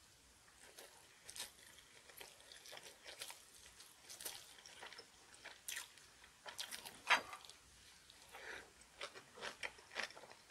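A person chewing a mouthful of rice and kimchi, with a string of short crunching clicks, the loudest about seven seconds in.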